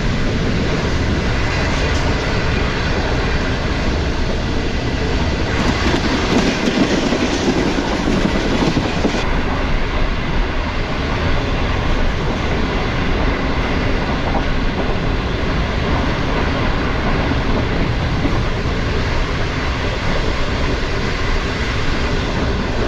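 Green Line Express passenger train running at about 100 km/h: a steady, loud rumble of wheels on the track. It swells for a few seconds about six seconds in.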